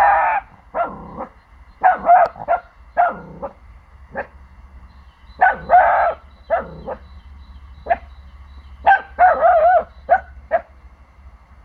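Four-month-old pomsky puppy barking in irregular clusters of short, high barks and yips, with some calls near the end drawn out with a wavering pitch. This is territorial alarm barking at unfamiliar sounds from the neighbouring house.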